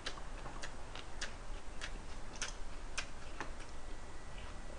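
Faint, regular ticking: a sharp tick roughly every 0.6 seconds over a low steady hiss.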